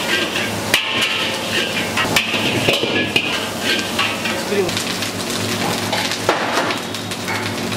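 Stir-frying in a wok: rice sizzles steadily while a metal spatula scrapes and clanks against the wok, tossing the fried rice with frequent sharp knocks.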